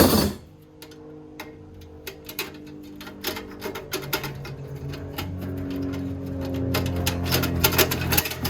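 Rapid sharp clicks and rattles of drive cables and plastic parts being pulled and handled, over soft background music with held notes that grows louder in the second half.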